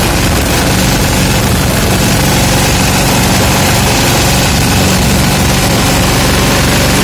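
Escorts Steeltrac 15 hp mini tractor's diesel engine running steadily while the tractor drives at road speed, heard loud from the driver's seat.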